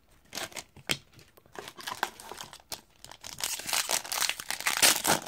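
A hockey card pack wrapper being crinkled and torn open, in irregular crackles that get denser and louder over the last couple of seconds.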